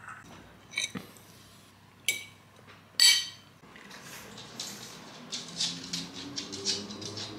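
A metal fork clinking and scraping on a ceramic plate: a few sharp clinks, the loudest about three seconds in. Then a pug's claws tapping quickly on a wooden floor as it walks, with low breathing noises from the dog near the end.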